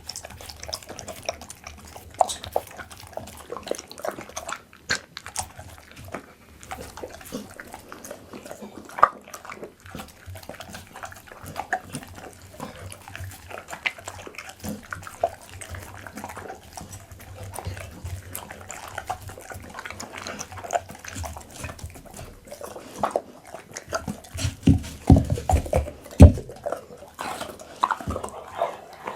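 Pit bull eating raw meat close to the microphone: wet chewing and smacking with many small clicks of teeth, and a run of louder, deeper chomps near the end.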